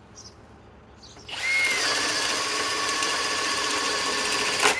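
Master Force Boost cordless hammer drill starting about a second in and running steadily in low gear (speed one), boring a 1 3/8-inch spade bit through a wooden board. Near the end there is a sharp knock, and the motor's pitch rises a little.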